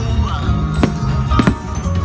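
Loud music with a heavy, sustained bass, and a few sharp cracks about a second in and again about halfway through.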